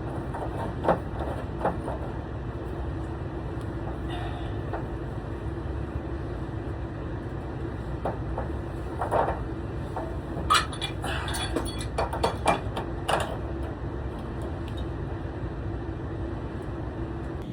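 Scattered small metallic clicks and knocks of hand tools and parts while the upper heating element and thermostat of an electric water heater are being fitted, bunched in the middle of the stretch, over a steady low hum.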